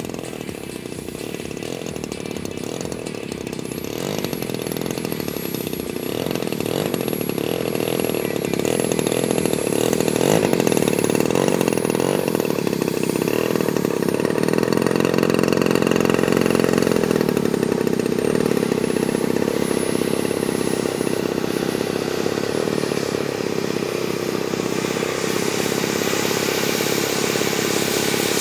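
Engines of large radio-controlled model warbirds running on the ground: a steady buzzing engine note that grows louder over the first ten seconds and then holds, with a thin high whine drifting slightly in pitch above it.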